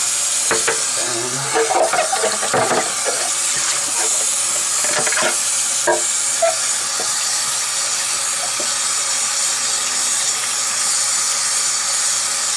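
Bathroom faucet running steadily into the sink, an even hiss of water, with a few light knocks and clatters in the first half as the plastic parts of a hang-on-back aquarium filter are rinsed and handled under it.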